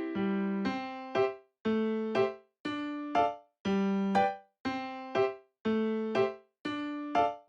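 Background music: a light, bouncy electric piano tune with chords struck about once a second.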